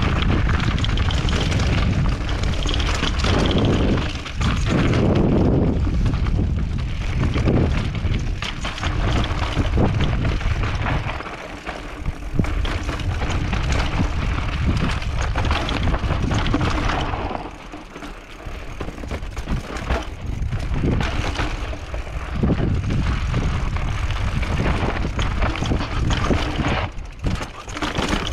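Mountain bike descending a dirt and loose-rock trail: wind buffeting the microphone and tyres rolling over the ground, with frequent rattles and knocks from the bike over rough spots. The noise drops away briefly twice, a little before halfway and again about two-thirds of the way through.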